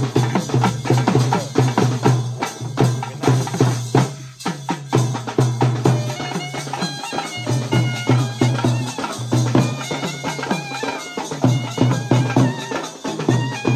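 Traditional South Indian ceremonial music: fast, dense drumming under a reed pipe with a drone, whose melody comes in clearly about six seconds in.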